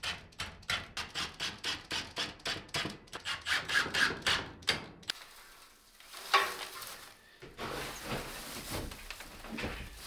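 Hammer tapping in quick even strokes, about four a second, for about five seconds, as a metal hay feeder is fastened to a barn wall. It then gives way to quieter handling and rustling, with a single knock about six seconds in.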